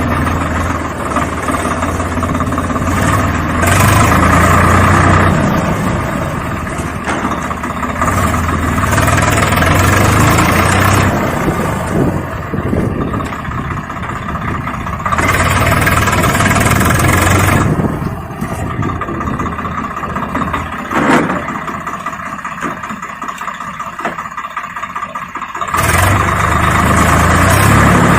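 An engine-like motor running continuously, its sound swelling and easing every few seconds.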